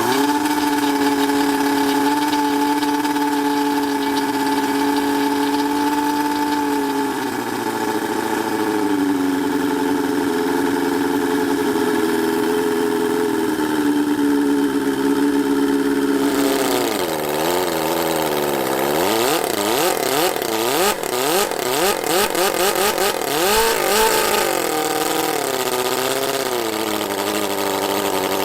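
Miniature 17.5cc four-cylinder OHV model engine running at a steady speed, settling slightly lower about seven seconds in, then revved up and down repeatedly through the second half.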